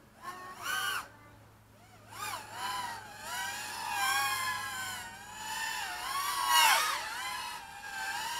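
Small quadcopter's DYS 1306 4000 kV brushless motors with three-blade props whining in flight, the pitch rising and falling with the throttle. There are short blips in the first second, then a steadier whine from about two seconds in, with a quick sharp rise and drop near the end.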